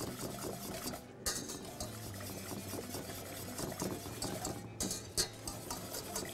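Wire whisk beating a creamy sauce in a stainless-steel saucepan: quick, continuous scraping and clinking of the wires against the pan, with brief pauses about a second in and near five seconds.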